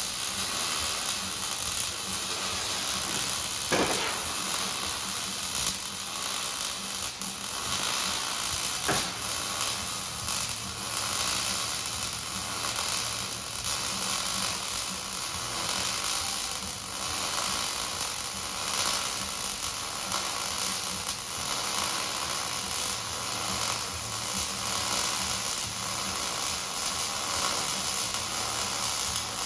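Electric welding arc crackling and hissing steadily as a weld bead is laid, with two sharp ticks about four and nine seconds in.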